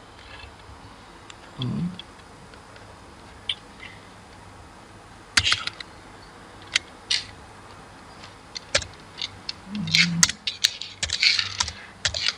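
Computer keyboard keystrokes and clicks, scattered and sparse at first, then coming quickly in a run near the end.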